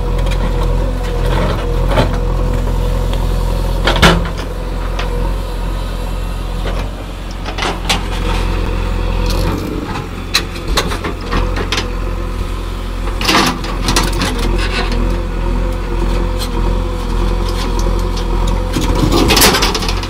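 JCB 3DX backhoe loader's diesel engine running steadily under load as its rear bucket digs into soil, with several sharp clanks and knocks from the bucket and arm.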